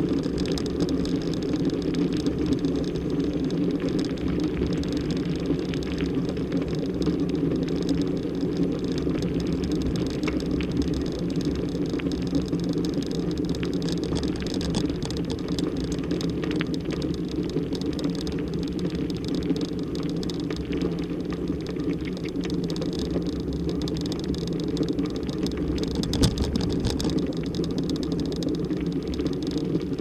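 Dog scooter rolling over a gravel forest track: a steady low rumble from the tyres with scattered small clicks and rattles.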